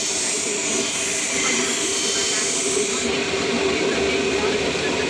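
Scissor blade being ground on a running sharpening wheel: a steady motor hum with a high grinding hiss that stops about three seconds in as the blade comes off the wheel.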